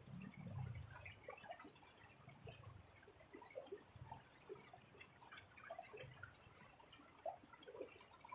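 Faint trickling of shallow running water, with many small scattered drips and plinks.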